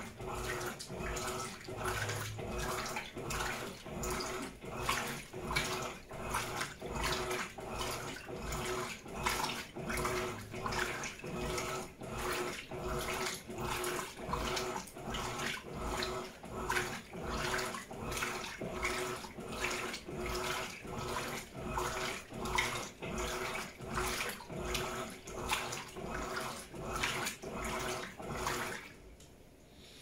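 Electrolux LED17 top-load washing machine agitating a heavy king-size polyester blanket in sudsy water on its heavy wash cycle: rhythmic sloshing and swishing, about two strokes a second, over a steady motor hum. The agitation stops near the end.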